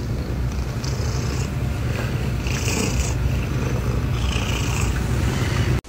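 Domestic tabby cat purring loudly and steadily, close up: a continuous low rumble with three short hissy sounds over it, ending abruptly just before the end.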